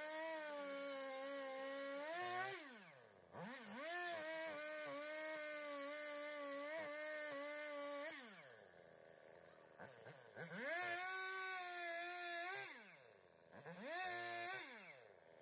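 Battery-powered chainsaw whining at full speed, then released and spinning down, then run back up: four runs of a few seconds each with a short blip between the first two. Each time it winds down smoothly to a stop rather than dropping to an idle.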